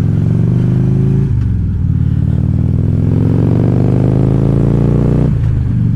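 2014 Harley-Davidson Ultra Classic Limited's V-twin engine pulling under acceleration: its pitch climbs, drops sharply with an upshift about a second in, climbs again and drops with another upshift near the end.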